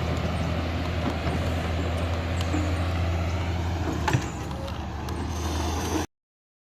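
Mini excavator's diesel engine running steadily, with a single sharp clunk about four seconds in; the sound then cuts off abruptly.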